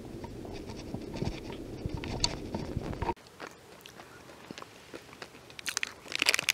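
Plastic wrapper of a nut-and-fruit snack bar crinkling, loudest in a burst near the end, with crunchy bites and chewing of the bar. Before that, a low rumble with scattered clicks cuts off abruptly about three seconds in.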